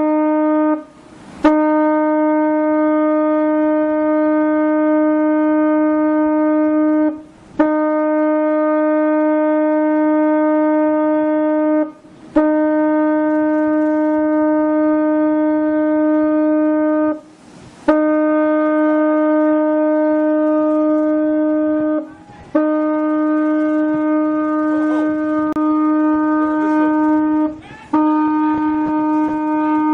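A boat's signal horn sounded over and over in long, steady blasts of about four to five seconds each, with brief breaks between them: warning signals as a fishing trawler bears down on a collision course.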